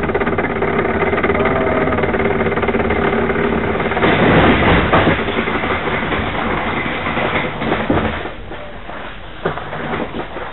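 Kart trolley's small wheels rolling and rattling over the ground, with the kart shaking on it. The clatter is loudest about four to five seconds in, and the rolling stops at about eight seconds, leaving a few scattered knocks.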